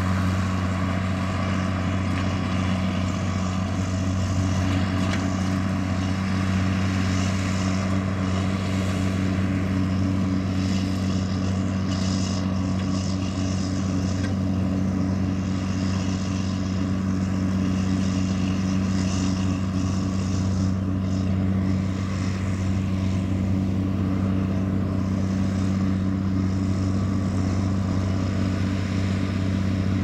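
John Deere 4450 tractor's six-cylinder diesel engine running at a steady, even pitch under load while it pulls a round baler through hay.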